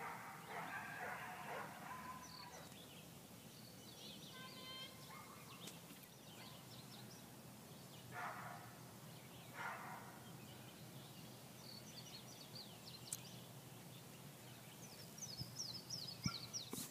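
Quiet open-air ambience with small birds chirping on and off, and a few brief faint sounds in between.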